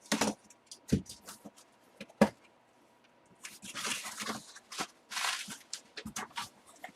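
Three sharp knocks, then rustling and scraping with scattered clicks: a boxed full-size football helmet and its packaging being handled.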